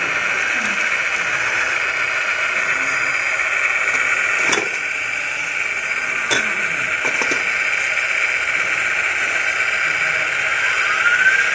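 Two sharp knocks a couple of seconds apart as a scale model excavator's bucket strikes and lifts a model truck's body, over steady background noise.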